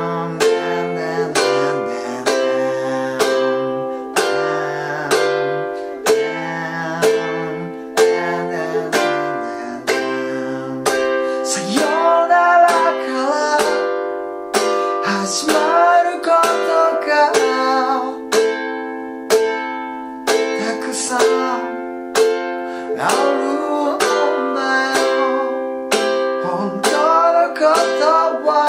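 Ukulele strummed in a steady rhythm through an interlude on C, G7, Am and F chords, under a lower sustained part. From about twelve seconds in, a man sings a Japanese verse over the strumming.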